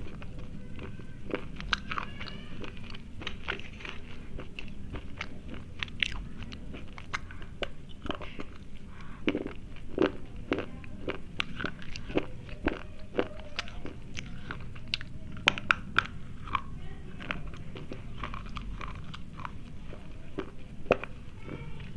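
Close-up crunching and chewing of thick slate pencils: a steady run of sharp, irregular crunches as the chalky sticks are bitten and ground between the teeth.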